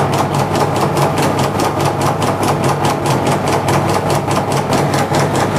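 Electric bakso (meatball-forming) machine running as it forms meatballs from the meat dough: a steady motor hum with a fast, even clatter of about five or six beats a second.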